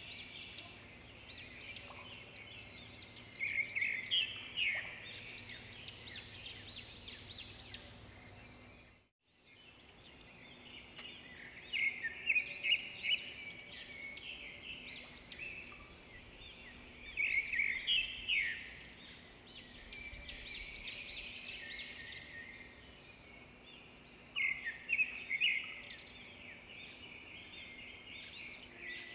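Birds chirping and calling in quick runs of high notes, in bursts every few seconds. The sound drops out briefly about nine seconds in.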